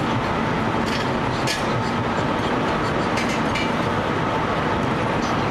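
1902 American LaFrance steam fire engine running as it pumps from a portable tank: a steady, loud mechanical rush with a faint steady tone through it and a few light clicks.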